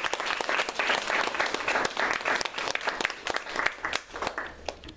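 A small audience applauding, many hands clapping at once, the clapping thinning out near the end.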